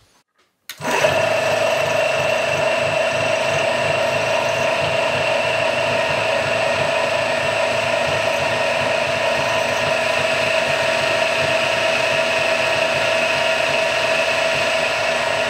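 Centec 2A milling machine's three-phase motor and belt drive switched on about a second in, then running steadily at speed with a steady whine over a low rumble. The new pulley and belt grip without slipping, so the spindle no longer hunts.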